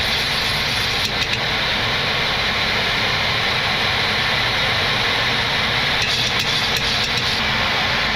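Steady rush of airflow and engine noise inside a Boeing 737 cockpit on final approach.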